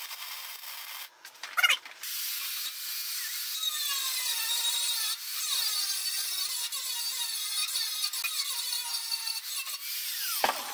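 Angle grinder grinding a MIG weld bead flush on a steel plate, a steady high grinding noise whose pitch wavers as the disc bites into the weld.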